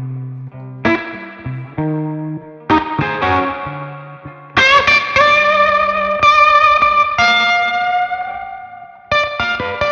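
Ivison Dakota electric guitar played through a Magnatone Twilighter amp: a riff of short low notes, then about halfway through high notes slid into and held with vibrato, and fresh notes picked near the end.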